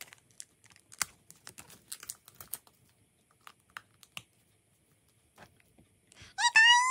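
Light scattered plastic clicks and taps from a small PVC Nendoroid figure and its parts being handled, through the first four seconds. Near the end comes a short, high-pitched call that rises and then holds, louder than the clicks.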